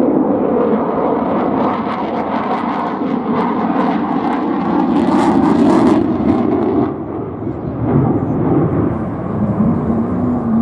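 Jet noise from Sukhoi Su-35S fighters' turbofan engines in display flight: a loud, continuous rush that swells about five seconds in and eases off a couple of seconds later.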